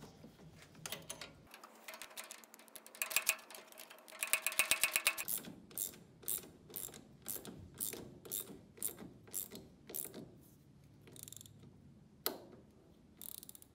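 Half-inch ratcheting wrench clicking as a bolt is tightened: a fast run of clicks, then steady clicks about two a second as the handle is swung back and forth, thinning out near the end.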